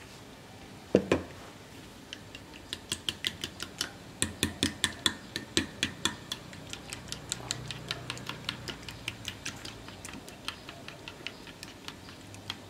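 Raw eggs being beaten with a plastic fork in a plastic dish: the fork clicks rapidly against the dish, several times a second. A single loud knock comes about a second in.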